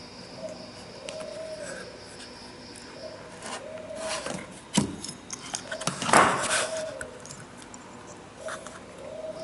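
Handling noise from an air-conditioner circuit board being shifted and rubbed on a desk. A run of clicks and knocks falls around the middle, with two sharper knocks. A faint short call repeats in the background about once a second.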